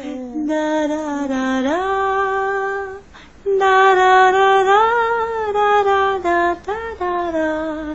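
A woman singing a slow lullaby to a baby in long held notes, in two phrases with a short breath-break about three seconds in; the first phrase steps up in pitch partway through.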